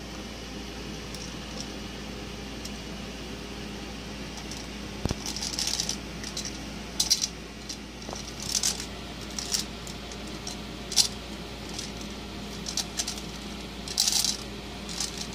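Small red plastic rattle toy jingling in short, irregular bursts as it is moved about in front of a rabbit, over a steady low room hum.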